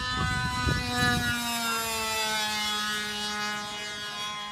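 Radio-controlled model airplane's motor and propeller whining overhead, its pitch sliding slowly lower as it fades away. Wind rumbles on the microphone for about the first second.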